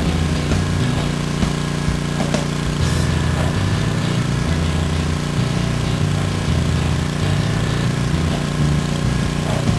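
Pressure washer's small engine running steadily, with the hiss of the high-pressure jet spraying onto a concrete walkway.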